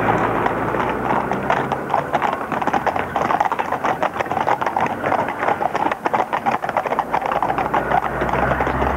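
Hooves of several horses clip-clopping on brick paving, a dense, irregular clatter of many overlapping hoofbeats as the group moves along together.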